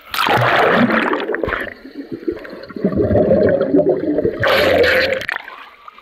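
Swimming-pool water splashing and gurgling against a waterproof camera as it dips under the surface and back out. A splash in the first second or so, a muffled underwater rush from about halfway, a second splash near the end, then it drops off shortly before the end.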